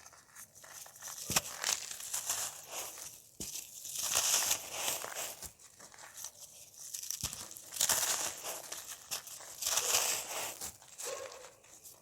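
Dry, crunchy cake being crumbled, crackling and crunching in bursts that swell and fade every second or two, with a few sharp snaps as pieces break.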